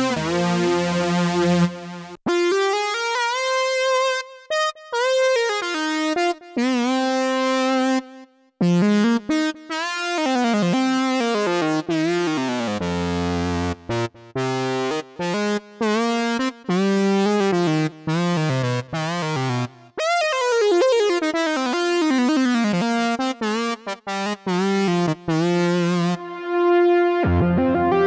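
Sequential Take 5 five-voice analog polysynth playing a melody of notes that slide in pitch into one another, with short breaks between phrases. Near the end a different preset with a deep bass comes in.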